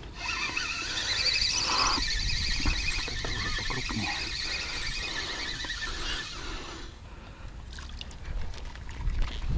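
Spinning reel on a feeder rod being cranked fast to retrieve a hooked fish, a steady whirring that stops suddenly about seven seconds in. A few short knocks follow near the end.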